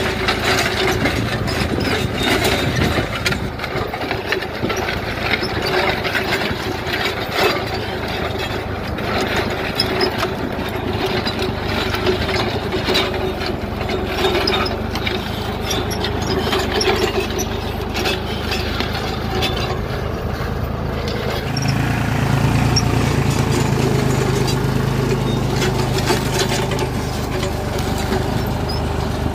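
Deutz-Fahr tractor's diesel engine running steadily under load as it pulls a disc plough through hard soil, with frequent knocks and scraping from the discs cutting and turning dry clods. About twenty-two seconds in, the engine note deepens and gets louder.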